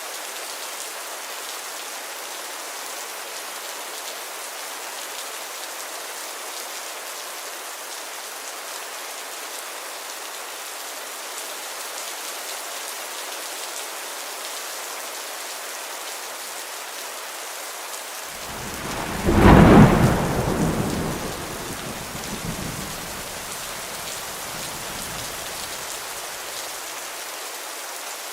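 Steady heavy rain, with a single thunderclap that breaks loudest about two-thirds of the way in and rumbles away over a few seconds.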